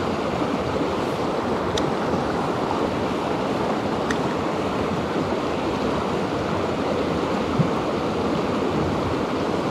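Mountain river rushing steadily over rapids, with a couple of faint clicks about two and four seconds in.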